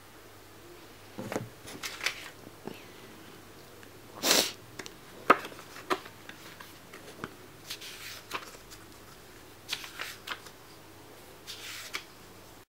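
Paper pages of a small book being handled and turned by leather-gloved fingers: scattered short rustles and crisp flicks, the loudest a longer rustle about four seconds in and a sharp snap a second later. The sound cuts off abruptly just before the end.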